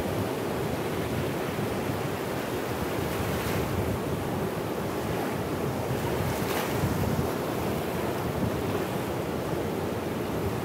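Sea surf breaking offshore and small waves lapping over sand at the water's edge, a steady wash of water noise with two brief hisses of water running up the sand about three and six and a half seconds in. Wind buffets the microphone throughout.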